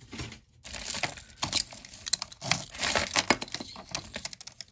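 Costume jewelry handled and untangled by hand: beads, chains and a shell pendant clicking and rattling together in a fast, irregular run of small clicks.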